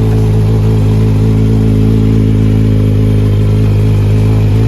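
Kawasaki Z1000's inline-four engine idling steadily and loud through SC Project aftermarket exhausts that do not yet have their connecting pipe fitted.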